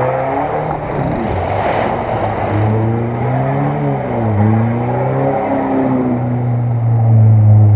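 Lada Niva's engine revving up and down repeatedly as it pushes through a muddy rut, loudest near the end.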